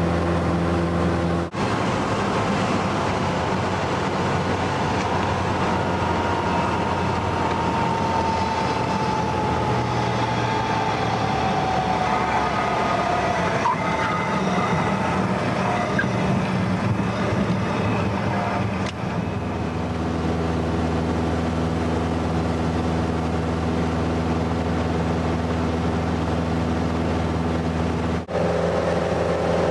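Cessna 172N's four-cylinder Lycoming engine and propeller droning steadily, heard from inside the cabin. The sound changes abruptly about 1.5 s, 19 s and 28 s in; from about 1.5 s to 19 s it is rougher and noisier, with a faint tone sliding slowly down in pitch.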